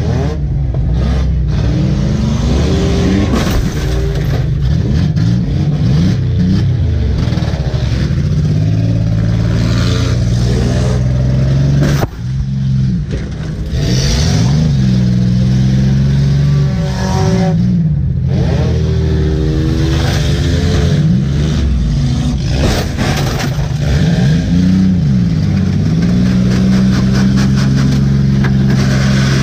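Demolition derby car's engine heard from inside the cabin, revving hard and dropping back again and again as it drives and reverses, with sharp bangs and metal clatter from collisions. One hard hit comes about twelve seconds in.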